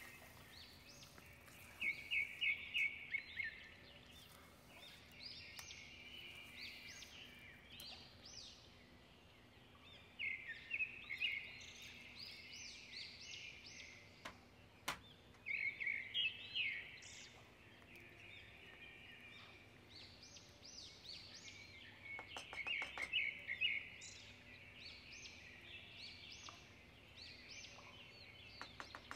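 Small birds chirping and singing in bursts of quick high notes every few seconds, with a single sharp click about halfway through.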